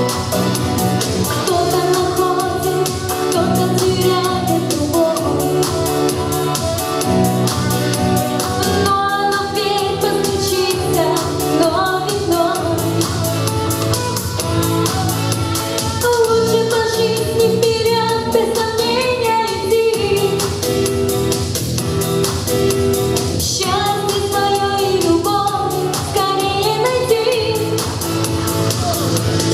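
A woman singing a pop-style song over instrumental accompaniment with a steady beat.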